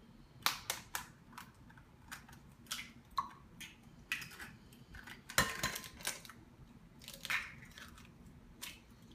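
Raw eggs being cracked by hand over a glass mixing bowl: a series of short, sharp shell cracks and crunches, the loudest about five and a half seconds in.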